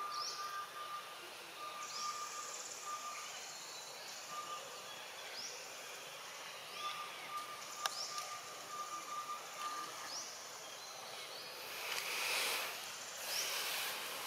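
Outdoor daytime ambience: a bird giving a short rising call about every second and a half, a second steady whistled note repeated in short runs, and a high insect drone. A brief rustling hiss rises near the end.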